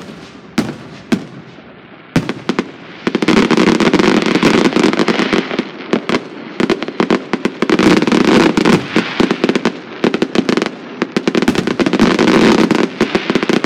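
Fireworks going off: a few separate bangs, then from about three seconds in a dense, rapid run of popping and crackling with brief lulls.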